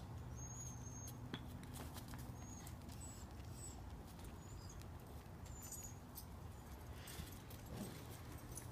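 Young puppies moving about in their pen: scattered light clicks and scratches of claws, with a few faint, very high, short squeaks, over a steady low hum.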